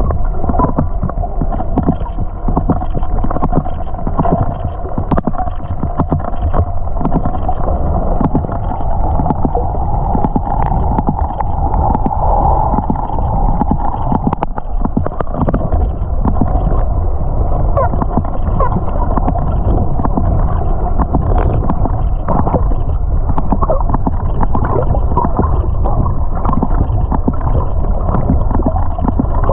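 Underwater sound picked up by a submerged camera: a steady rushing wash of water, with faint dolphin clicks scattered through it and a few short whistles.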